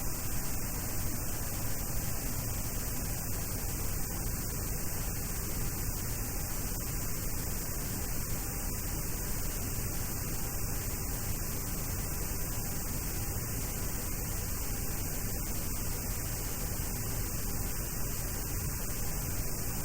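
Steady hiss with a low hum, unchanging throughout, with no distinct events.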